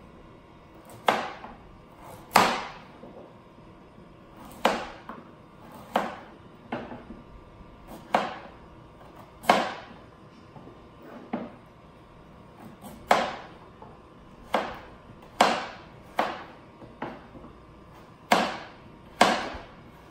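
Kitchen knife chopping carrots on a cutting board: sharp knocks of the blade striking the board, irregularly spaced at roughly one a second.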